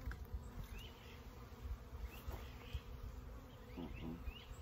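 Many honeybees from a freshly installed package buzzing around an open hive: a steady, fairly faint hum, with a few short faint chirps above it.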